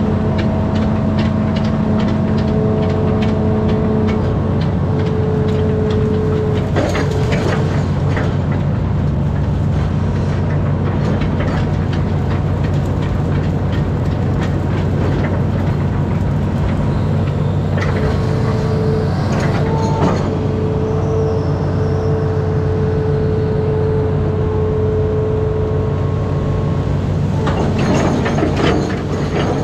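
Amphibious excavator's diesel engine running steadily under working load, with a higher steady hum that drops out for a while and comes back as the boom works. Clicks and clattering crackle come at intervals, loudest about a third of the way in, around two-thirds in and near the end, as the bucket tears through brush.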